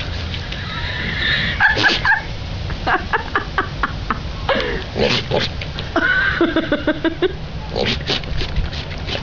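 Goats bleating several times. A quick run of short, stuttering bleats comes about three seconds in, and a longer drawn-out bleat comes about six seconds in.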